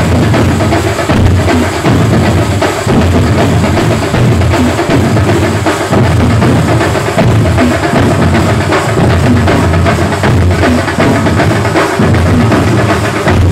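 Live drum ensemble playing loudly and fast without a break: large barrel drums beaten with sticks and a row of cylindrical drums give the deep strokes. Hand-held metal percussion shakes and clashes over the top.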